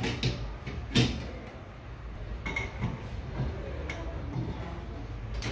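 Metal clanks and knocks as a stainless steel bowl is seated in a planetary stand mixer and the dough hook is fitted onto its shaft. The sharpest knock comes about a second in, with a few lighter clicks after it.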